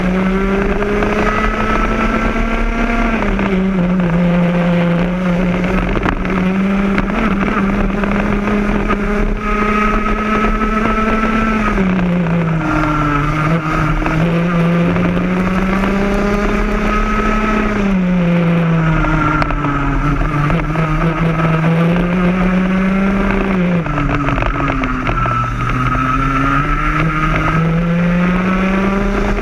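Onboard sound of a Rotax Max 125cc single-cylinder two-stroke kart engine at racing speed. The note holds high on the straights, then drops away and climbs back about five times as the kart slows for corners and accelerates out.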